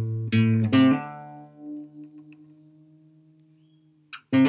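Background music: a few quick notes in the first second, then one low note left to ring and slowly fade for about three seconds, with new notes coming in near the end.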